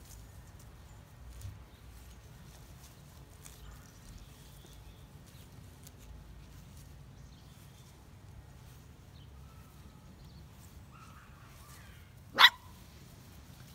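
A Sheltie puppy gives one short, sharp bark near the end, over faint outdoor background.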